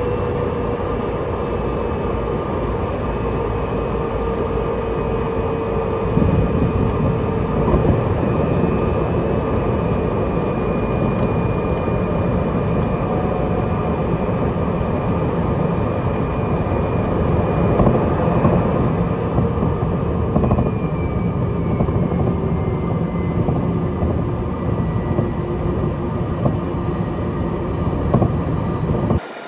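Cessna 208B Grand Caravan's Pratt & Whitney PT6A turboprop and propeller running loudly during the landing rollout, a steady drone with a tone that slowly drops in pitch as the aircraft slows. From about six seconds in, a rougher rumble of the wheels on the runway joins it. The sound cuts off abruptly at the very end.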